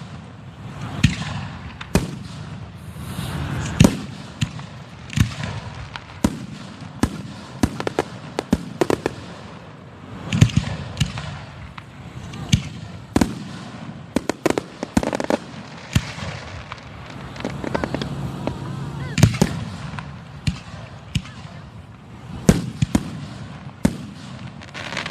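Aerial fireworks bursting in quick succession: sharp bangs every second or so, with a dense run of rapid crackling cracks about halfway through, over a continuous rumble of the display.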